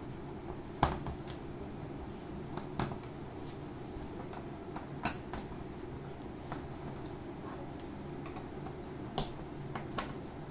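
Sharp, irregular clicks and taps of a screwdriver and loose screws on the plastic back cover of a Thomson 32-inch LED TV as its screws are taken out, over a steady low background hum.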